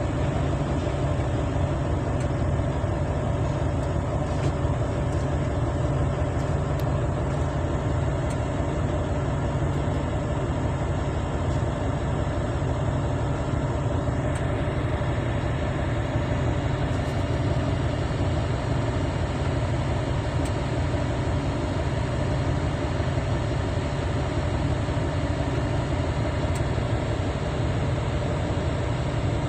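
Heavy diesel engines of mining machinery running in a steady low drone, with no distinct impacts.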